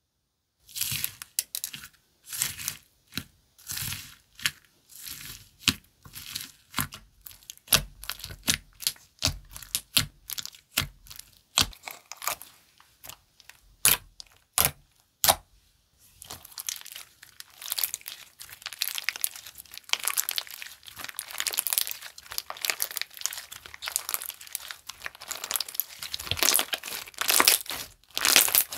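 Slime being pressed and squished by hand, making crinkly, crackling pops. For the first half the pops come in separate bursts about once or twice a second; from about halfway they run together into a denser, continuous crackling.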